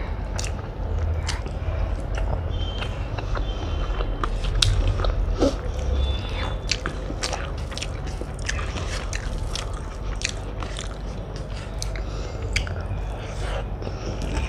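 Close-up chewing of rice and omelette curry, with many small, irregular mouth clicks.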